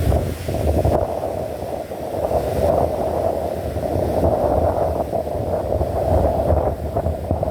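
Heavy rain falling, a steady rushing noise, with wind rumbling on the microphone.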